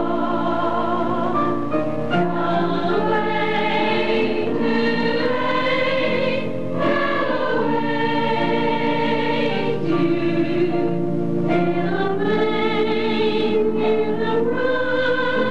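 A choir singing slow, held notes with vibrato, the melody slowly rising and falling, with brief breaks between phrases.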